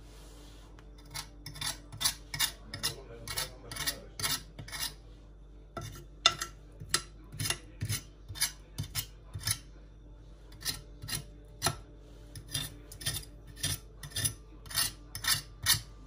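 Metal fork scraping burnt-on food residue in a glass baking dish, in quick repeated strokes, about two a second. The strokes come in three runs with short pauses between them.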